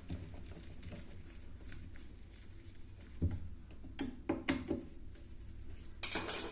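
Clicks and knocks of parts being handled during repair work on a top-load washing machine, with a sharp knock about three seconds in, a quick run of knocks a second later and a short scraping rustle near the end, over a steady low hum.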